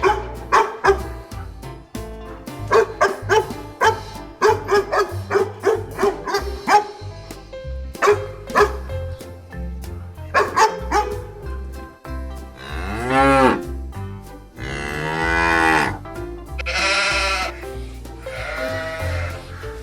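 A dog barking in quick short yelps over background music, then three long cow moos, each rising and falling in pitch.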